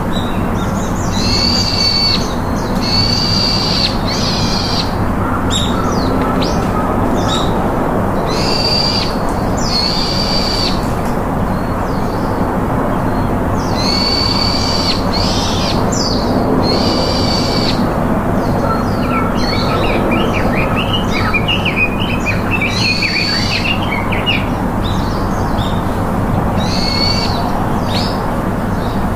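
Birds calling: a high, clear call repeated in pairs and small groups every few seconds, with a rapid twittering burst about two-thirds of the way through, over steady background noise.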